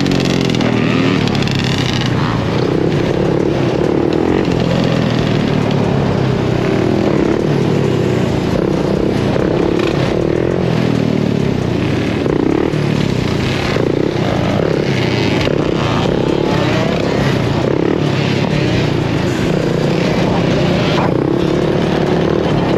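Suzuki LT-Z sport quad's engine running under the rider, its revs rising and falling again and again as it is throttled on and off, with the engines of nearby dirt bikes and quads mixed in.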